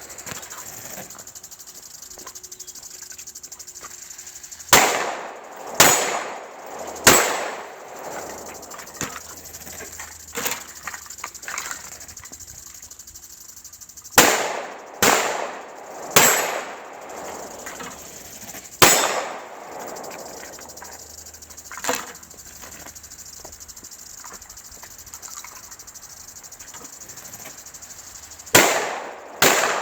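Glock 17 9mm pistol firing about ten shots, each a sharp crack with a short echo, in uneven groups with pauses between. Weaker clicks and a faint steady hiss lie between the shots.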